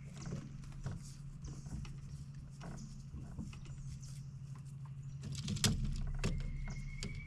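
Scattered light knocks, clicks and rustles of hands working a limb line on an overhanging tree branch from a small boat, with a louder flurry of knocks about five and a half seconds in. A steady low hum runs underneath.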